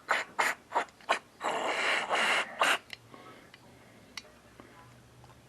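Aerosol carburetor cleaner sprayed in hissing bursts through the jets and passages of a plastic Briggs & Stratton carburetor, to clean out dirt. Four short squirts come first, then a longer spray of about a second and a half that stops near the 3-second mark.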